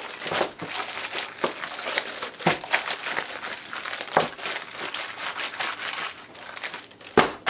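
Plastic zipper bag of chicken drumsticks in marinade crinkling and rustling as it is squeezed and worked by hand, with one sharp tap near the end.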